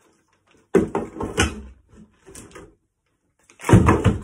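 Plastic-bagged RC car kit parts rustling and knocking against a cardboard kit box as they are handled, in two bursts: one about a second in and a louder one near the end.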